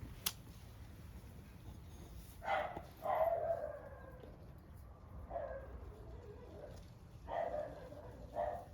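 Dog barking, about five barks spaced irregularly a second or two apart, one of them drawn out longer. A single sharp click sounds just after the start.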